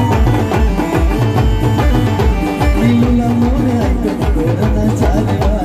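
Live band music: large bass drums beating a fast steady rhythm, about three beats a second, under a sustained, wavering melody line.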